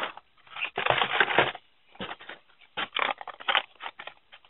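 Carded Hot Wheels cars being pulled out of a cardboard case: the cardboard backing cards and plastic blisters rustle and scrape against the box in irregular bursts. The longest, loudest stretch comes about a second in, with a run of shorter rustles around the three-second mark.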